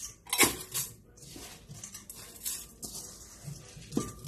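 Soaked, drained rice being tipped from a metal bowl into a rice cooker's inner pot and pushed out by hand: rustling, hissing slides of grain, with a sharp clink of the bowl against the pot about half a second in and another near the end.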